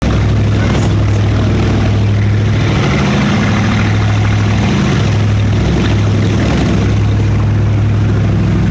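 Go-fast powerboat engines running steadily at high speed: a loud, even low drone with a rushing noise over it.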